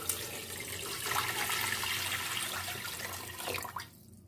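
Water being poured onto raw chicken pieces in a metal cooking pot: a continuous splashing pour that stops abruptly near the end.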